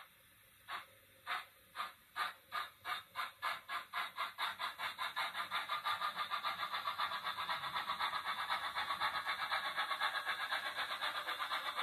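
Rapido Hunslet 16-inch 0-6-0 saddle tank model's DCC sound decoder playing steam exhaust chuffs through its small onboard speaker as the locomotive pulls away. The beats start slow and separate and quicken steadily to a rapid, almost continuous chuffing as it gathers speed.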